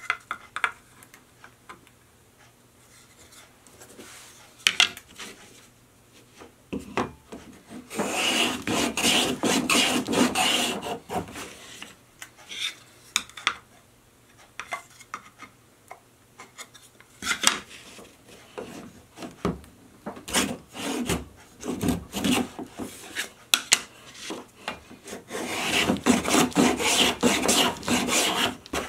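Hand plane shaving a thin walnut panel on a planing board, in several spells of strokes: a long run a third of the way in, shorter separate strokes after the middle, and another run near the end. Sharp clicks and knocks of the panel and plane being handled come in between.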